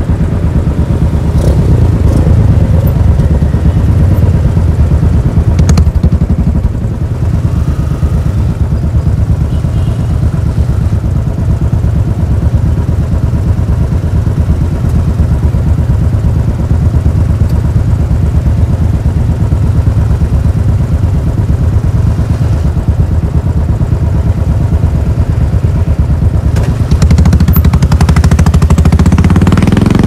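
Royal Enfield Classic 500's single-cylinder four-stroke engine with its steady, pulsing beat: it runs down to idle as the bike stops, then revs up as it pulls away near the end.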